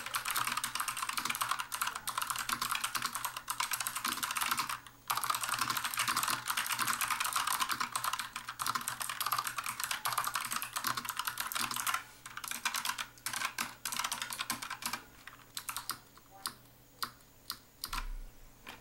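Fast typing on a Bloody B840 mechanical keyboard with LK Optic Blue optical switches, a dense stream of clicky keystrokes with a short break about five seconds in. After about twelve seconds the typing thins out to scattered single keystrokes.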